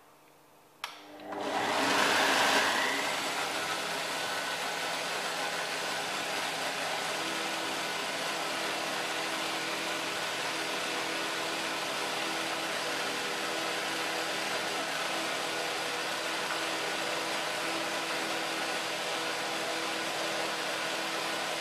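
Kenwood countertop blender switched on with a click about a second in, loudest as it spins up, then running steadily as it mixes a runny flour-and-water batter; it cuts off at the end.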